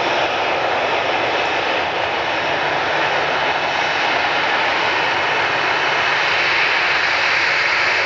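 McDonnell Douglas MD-81 airliner's two rear-mounted Pratt & Whitney JT8D turbofans at go-around power as it climbs away, a steady, loud jet noise that shifts slightly higher in pitch in the second half.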